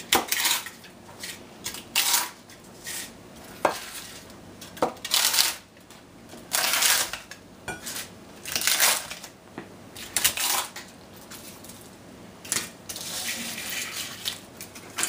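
Knife cutting crisp grilled tortilla wraps on a plastic cutting board: irregular crunches and cracks, with sharp knocks of the blade on the board. Near the end the brittle pieces are broken up by hand in a longer run of crackling.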